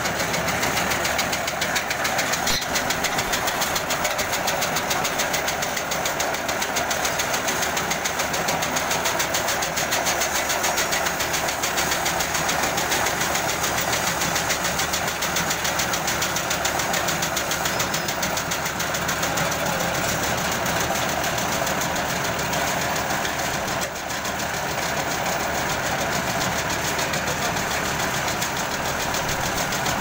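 Engine of a concrete paving machine running steadily with a rapid, even pulse while it spreads and levels fresh pavement concrete.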